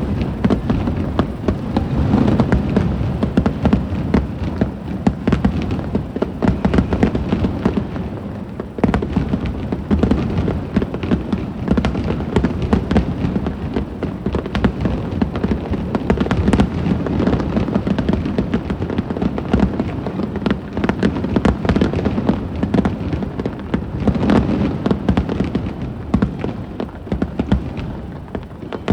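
Aerial fireworks shells bursting in quick succession, a dense, continuous run of loud bangs with deep booms beneath.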